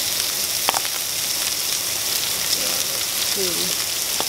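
Shrimp frying in oil in a nonstick skillet: a steady sizzle with a couple of sharp pops.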